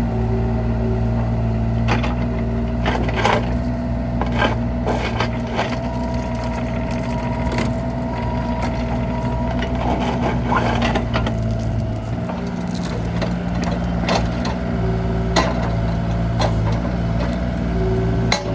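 2018 Bobcat E32i mini excavator running: a steady diesel engine drone with a held whine over it, broken by many irregular sharp knocks and cracks.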